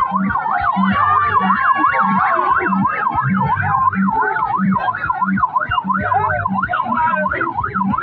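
A vehicle siren in fast yelp mode, its pitch sweeping up and down several times a second without a break. A steady low beat runs underneath at about two thumps a second.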